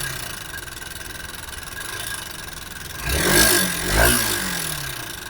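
Honda Unicorn BS6 single-cylinder engine idling with an odd tik-tik noise, the throttle blipped twice about three and four seconds in. The mechanic suspects the tappets or the timing chain.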